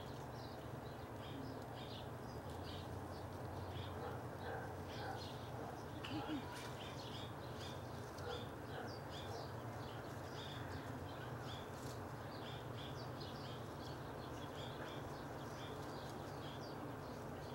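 Small birds chirping in short, quick, irregular notes over a steady low hum.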